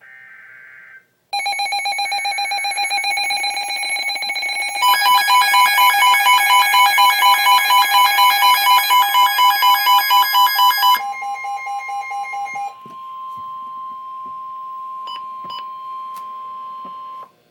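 Emergency Alert System alert tones. A short faint data burst is followed by a loud steady alert tone. About five seconds in, a rapidly pulsing alarm tone joins it. For the last several seconds a single steady tone holds, then cuts off suddenly near the end.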